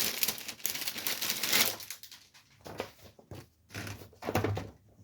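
Paper rustling as a magazine is handled and its pages turned: a continuous rustle for about the first two seconds, then scattered short rustles and taps.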